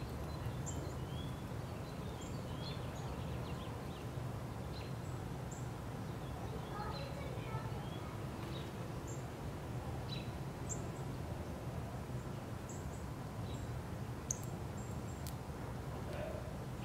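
Outdoor backyard ambience: a steady low background rumble with scattered short, high bird chirps and calls throughout.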